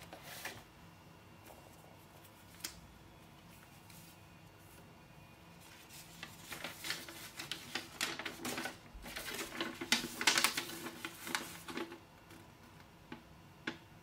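A folded paper instruction leaflet handled and unfolded: a few light taps at first, then several seconds of crinkling and rustling paper from about halfway through, loudest near the end.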